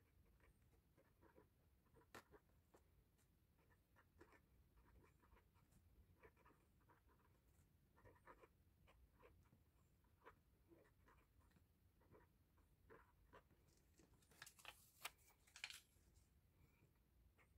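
Very quiet handling of photocards, plastic sleeves and binder pages: scattered light taps and rustles, with a louder burst of rustling about fifteen seconds in.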